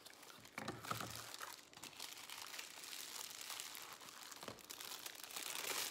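Clear plastic packaging wrap crinkling as it is handled and pulled off a boxed camera part by hand, with a few light clicks.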